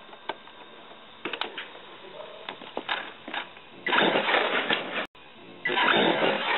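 Traxxas E-MAXX RC monster truck with a brushless motor on a 3S LiPo driving hard in a wheelie: a few light clicks, then two loud stretches of motor and tyre noise, about four seconds in and again from near six seconds on.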